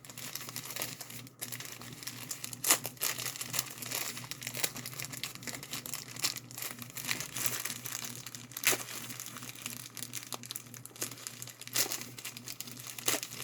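Mail packaging being torn open and crinkled by hand: irregular crackling and ripping, loudest about three seconds in and again near nine seconds, over a faint steady low hum.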